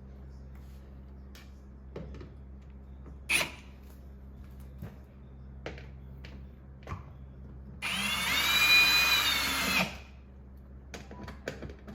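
Cordless drill/driver running a screw into a dishwasher door panel: one loud whine of about two seconds near the end, with scattered clicks and taps of handling before it.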